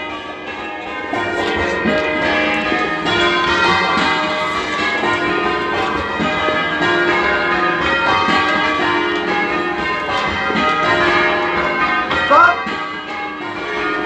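A ring of ten church bells (tenor 19 cwt in E flat) being change rung, heard from inside the ringing room as a steady, even stream of strokes. The bells sound slightly muffled, with the clapper knock of the back bells prominent. A short loud call from a voice breaks in near the end.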